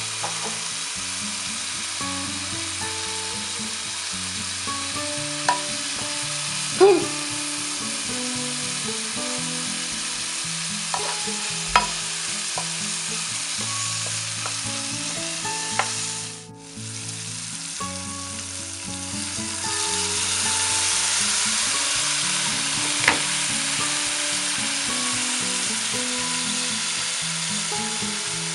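Biltong and diced green peppers sizzling as they fry in a pan while being stirred, with a few sharp clicks of the utensil against the pan. The sizzle drops away briefly past the middle, then comes back louder.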